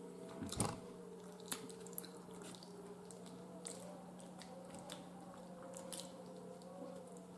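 Close-up eating sounds: chewing and mouth noises with scattered sharp clicks of a fork against a plate, most of them in the first two seconds, over a faint steady hum.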